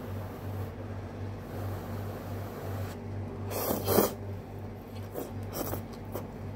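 A person slurping noodles off chopsticks: a loud slurp about three and a half seconds in, followed by a few shorter slurps and mouth sounds.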